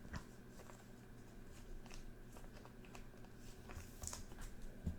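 Faint handling of trading cards: scattered soft clicks and light slides as cards are moved one at a time, over a steady low electrical hum.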